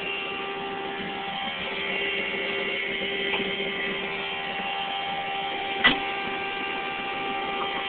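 A steady hum made of several fixed tones, with one sharp knock about six seconds in.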